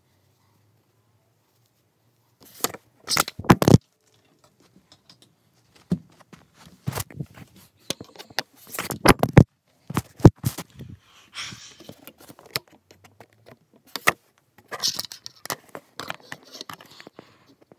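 Handling noise from sewing and stuffing a fabric toy on a cardboard box: irregular clusters of rustles, scrapes and sharp clicks in three bouts, with short quiet gaps between.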